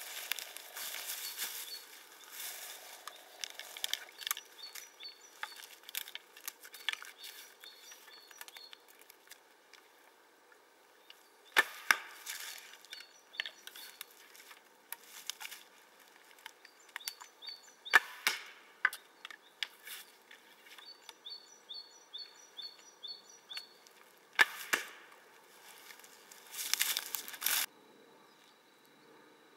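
Archery with a wooden longbow: sharp wooden snaps and knocks of arrows being shot and striking, three louder ones several seconds apart, with quieter clicks of handling between.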